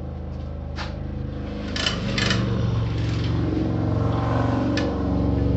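Air compressor motor running steadily, getting louder about two seconds in, with a few sharp clicks of parts being handled.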